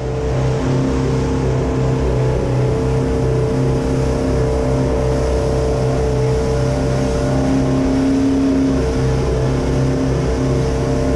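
Fishing boat's engine running steadily at cruising speed, a constant drone with the rush of wind and water over the hull.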